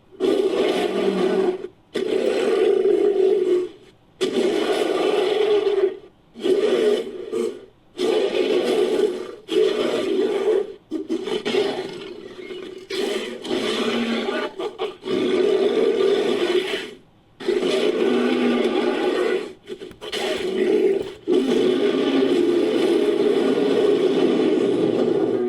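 Designed creature sound effects mixed from ape and big-cat roar recordings: a string of roars and growls, each a second or two long with short breaks between, the last one held for about four seconds.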